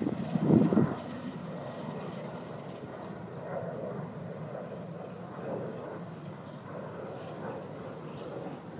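Steady low drone of a distant engine, with a brief louder burst about half a second in.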